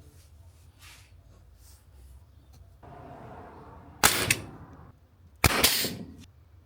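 Two sharp bangs about a second and a half apart, each trailing off over about half a second, after a few seconds of faint shuffling.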